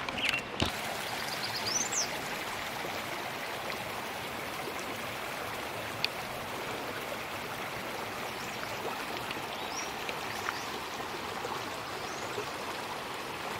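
Steady rushing of a creek flowing over rocks, with a few knocks in the first second and a short run of high chirps about two seconds in.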